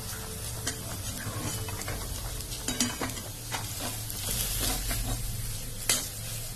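Flat metal spatula stirring and scraping a mashed-potato stuffing around a metal kadai, with scattered clinks of metal on metal over a steady sizzle of frying oil. The sharpest clink comes near the end.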